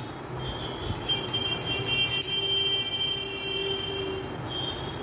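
A long, steady, horn-like tone sounds for about four seconds, loudest in the middle. A single sharp scissor snip cuts paper partway through.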